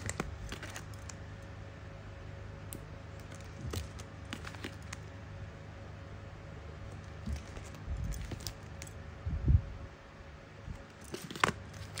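Handling noise from boxed, plastic-wrapped lighters being picked up and moved: scattered light clicks and crinkles, with a few low bumps, the loudest about nine and a half seconds in.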